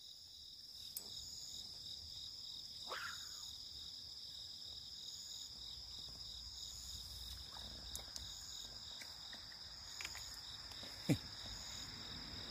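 Night insects, crickets, chirping steadily: a continuous high trill with a fainter, higher chirp repeating about once a second. A brief sharp sound stands out once, about eleven seconds in.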